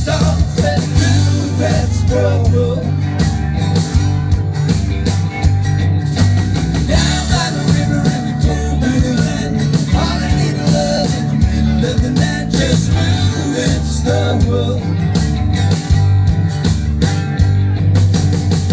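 Live country-rock band playing an instrumental break, with a guitar carrying the melody over a steady drum beat.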